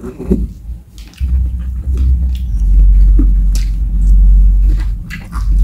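Close-miked eating sounds, with fingers squishing rice and pork and mouths chewing, and a few small clicks. A loud low rumble comes in about a second in and fades near the end.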